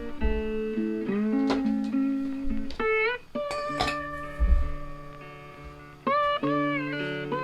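Blues guitar background music: an electric guitar picks single notes, several of them bent upward in pitch, over a low bass line with a few soft low thumps.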